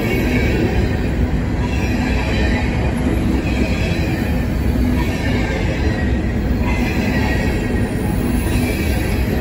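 Empty covered hopper cars of a freight grain train rolling past close by: a steady rumble of steel wheels on rail, with a higher-pitched sound that swells and fades about every second and a half.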